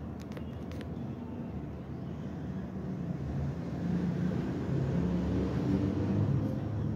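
Low rumble of a vehicle engine, growing louder about four seconds in, with a few light clicks in the first second.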